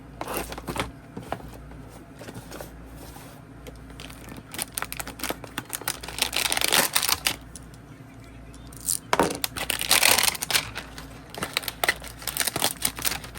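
Cardboard hanger boxes of trading cards being torn open by hand, with the packs inside crinkling as they are pulled out, in several crackling bursts of a second or two.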